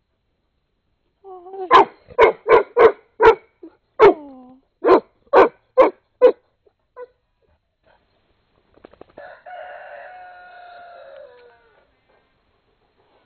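A dog barks about ten times in quick succession. Near the end a rooster crows once, quieter than the barks, its call falling away at the end.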